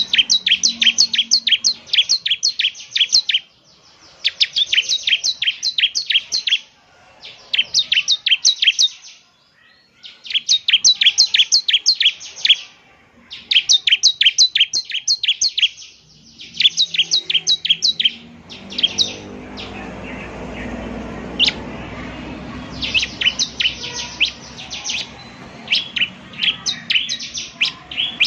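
Bar-winged prinia (ciblek) singing in repeated bursts of rapid, sharp, high chipping notes, each burst two to three seconds long with short pauses between. About two-thirds of the way through, a low rumbling noise runs under the song for a few seconds.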